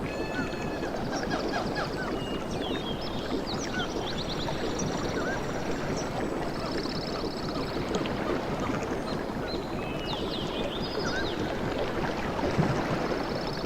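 Steady wash of water at a tropical beach with no big surges, with small birds chirping and trilling over it: short quick whistles and a few buzzy trills.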